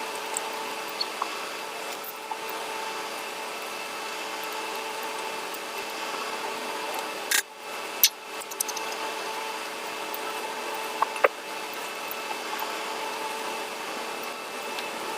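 Close-miked eating of rice and egg curry: steady mouth and chewing noise over a constant hum, with a few sharp smacking clicks about halfway through and again near two-thirds of the way.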